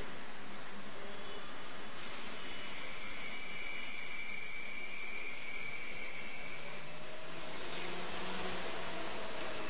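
CNC machine spindle running with a steady, very high-pitched whine over a constant hiss; the whine starts about two seconds in and stops abruptly a couple of seconds before the end.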